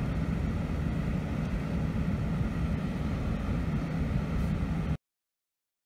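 Strong wind buffeting the microphone: a steady low rumble that cuts off abruptly about five seconds in.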